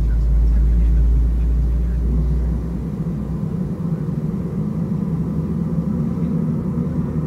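Airbus A320 cabin noise while taxiing: the CFM56-5A3 engines at idle give a steady hum over a low rumble. The deepest part of the rumble fades about three seconds in.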